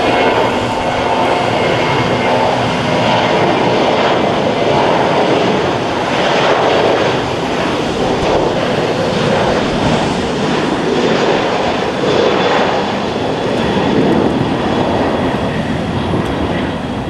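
Boeing 737 jet engines at takeoff thrust, a loud steady rush of noise. A few steady whining tones in it fade out about six seconds in.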